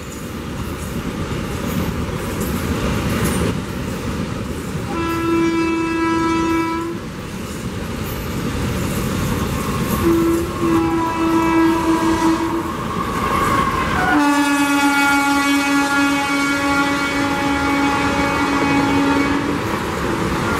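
Train horn of the 12001 Bhopal Shatabdi Express's electric locomotive sounding three times, about two seconds, then about three seconds, then a long blast of nearly six seconds, over the rising rumble of the train approaching at speed.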